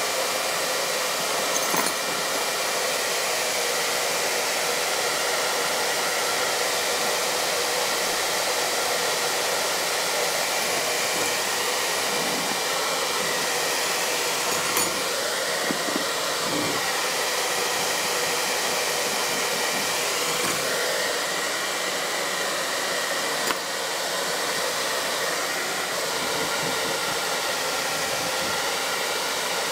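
Handheld hair dryer running steadily, blowing air into an open plastic toolbox of wet tools: a rush of air with a steady motor whine. A few faint clicks come through now and then.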